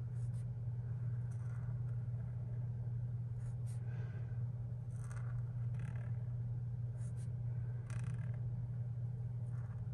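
Felt brush-tip calligraphy marker drawn across paper in lettering strokes: faint soft scratches about once a second. A steady low hum runs underneath.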